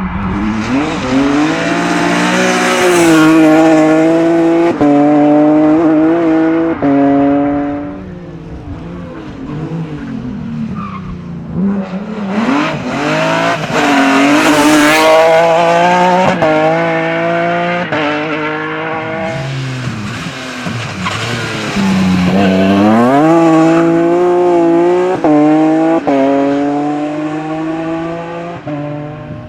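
BMW 130i rally car with an M3 engine accelerating hard through the gears. The engine note climbs and drops back at each upshift. It happens in three runs, with quieter gaps between them.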